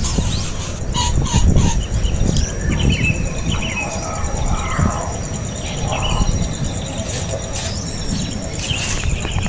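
Birds chirping in short, scattered calls, some gliding in pitch, over a steady low rumble.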